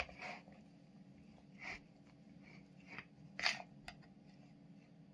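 Spoon stirring chopped salad of chicken, egg and corn in a plastic bowl: a few short, faint scrapes and clicks, the loudest about three and a half seconds in.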